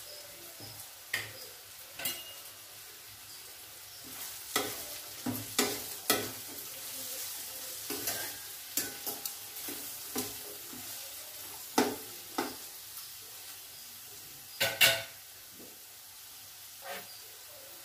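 Diced carrot, capsicum and beans frying in ghee in a steel kadai with a steady sizzle. A metal spoon stirs them, scraping and clinking against the pan at irregular moments; the loudest clinks come a few seconds before the end.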